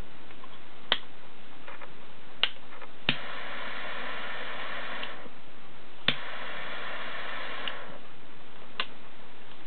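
Butane triple-jet torch lighter: sharp clicks from its piezo igniter and flip lid. Twice the torch lights with a click and its jet flame hisses steadily for about two seconds before cutting off.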